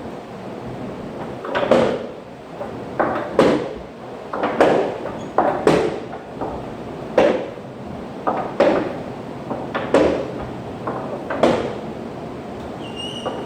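A series of irregular knocks or thumps, about one every second or so, over a steady background hiss.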